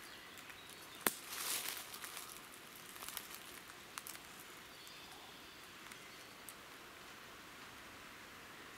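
Roe deer fawn moving through dry leaf litter as it settles down to lie: a sharp crack about a second in, then a second of rustling and a few softer snaps, after which only faint forest background remains.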